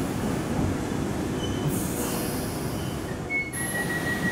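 London Underground train running along the platform, a steady rumble of wheels on rail with faint high wheel squeal. About three and a half seconds in, the sound changes and a steady high tone begins.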